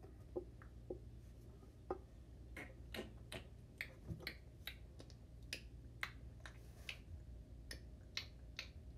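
Faint, irregular mouth clicks and lip noises from a child close to the microphone, one to three a second, over a low steady hum.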